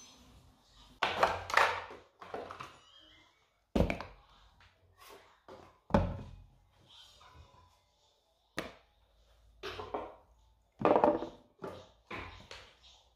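Toiletry bottles, plastic and glass, being set down one by one on a bathroom sink counter: a series of separate knocks and clunks with handling rustles between, in a small echoing room.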